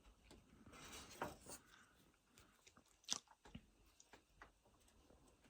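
Faint scattered clicks and small crackles from the bicycle's fork and handlebars being turned by hand, the loudest click about three seconds in.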